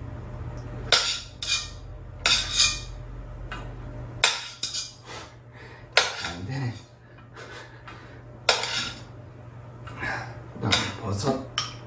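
Metal chopsticks clinking and scraping against stainless steel bowls and a stockpot as vegetables are lifted and mixed. The clinks are sharp and irregular, coming every second or two, and each rings briefly.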